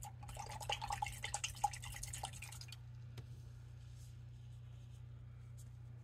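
A paintbrush being rinsed in a jar of water: faint watery swishing and small clicks and taps against the jar for the first three seconds or so, then only a low steady hum.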